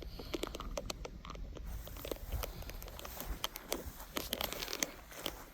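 Irregular crunching and crackling, like footsteps on a leafy, twiggy forest trail.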